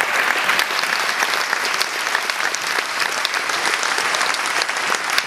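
Audience applauding: dense, steady clapping from a concert hall crowd.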